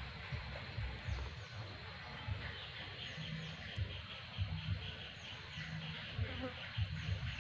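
Insects chirping in the waterside vegetation, a steady pulse of about four chirps a second that sets in a couple of seconds in, with short high falling whistles over it and low rumbling knocks underneath.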